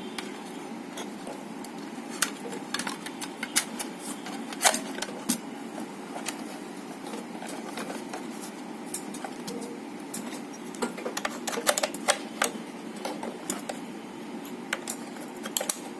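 Irregular small clicks and taps of a screwdriver and screws working against a plastic light-fitting shell as its screws are tightened, over a steady low background hum.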